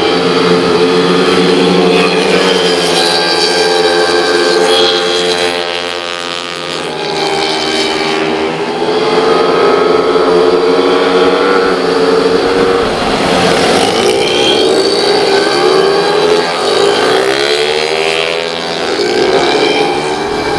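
Several 115 cc automatic racing scooters running hard on the track. Their engine notes rise and fall as the bikes pass and change speed, with the sound dipping briefly about a third of the way in.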